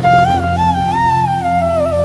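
Background music: a single melody line that slides up and down in pitch, over a steady low drone.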